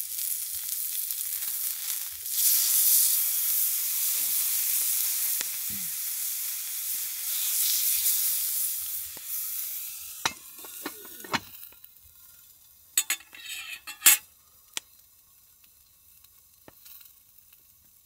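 Meat sizzling on a thick Kyutetsu iron griddle under its iron lid. The steady sizzle fades away after about ten seconds, and a few sharp metal clinks and knocks follow.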